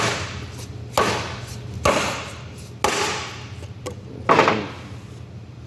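Hammer blows driving a centering installation tool to seat a part inside a 2-inch Safeway valve. There are five sharp, ringing strikes about a second apart, and the last is the loudest.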